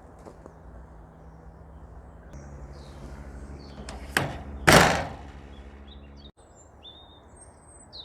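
A sharp clunk from the dropside truck's bodywork about four seconds in, then a loud slam half a second later, over a low steady hum. Birds chirp near the end.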